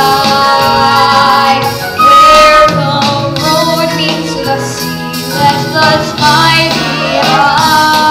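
Young voices singing a stage-musical number over instrumental accompaniment.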